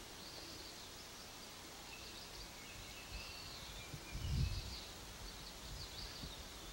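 Small birds chirping over and over in the background, above a steady hiss, with a short low rumble about four seconds in.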